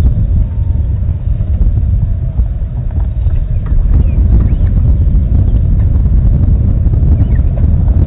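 Wind buffeting the microphone, a loud, steady low rumble. A few faint, short high chirps come through over it.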